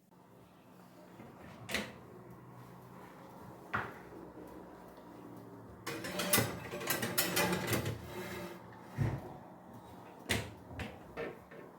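Handling noises of small hard objects: single sharp clicks, then a dense run of rattling clicks and clatter in the middle, followed by a few more clicks near the end.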